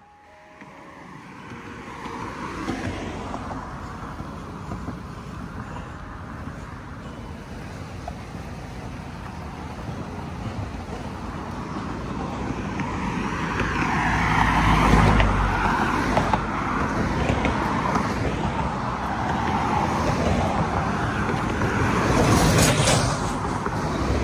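Road traffic on a multi-lane street: cars driving past with engine and tyre noise, swelling louder about halfway through and again near the end.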